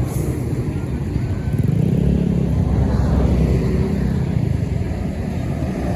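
Road traffic dominated by a steady low engine rumble from passing heavy vehicles.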